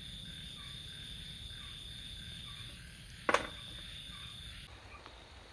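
Insects trilling in one steady, high, even tone, with a single sharp knock about three seconds in. The trill cuts off abruptly near the end.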